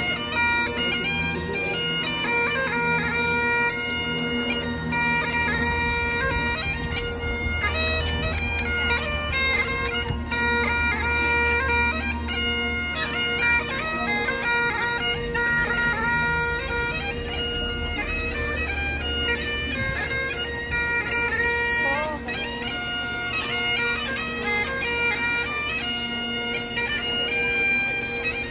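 Bagpipes playing a tune over their steady drones, without a break.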